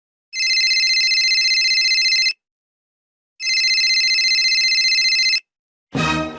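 Telephone ringing: two rings of about two seconds each, a second apart, each a steady high electronic ring. A different sound cuts in near the end.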